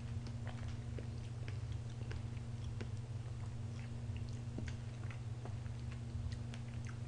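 Soft chewing and small scattered mouth clicks of someone eating fresh-cream strawberry cake from a fork, over a steady low hum.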